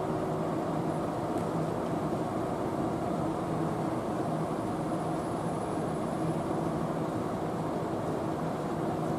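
EF81 electric locomotive running with a steady hum, several held tones over an even mechanical noise, with no wheel clatter or other breaks.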